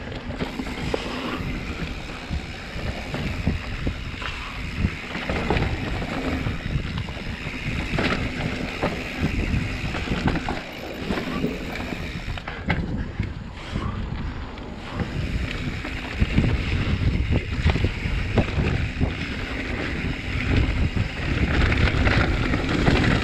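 Mountain bike riding fast down a dirt singletrack: wind buffeting the microphone over tyre noise on dirt and the frame rattling and knocking over bumps. It grows rougher and louder for the last several seconds.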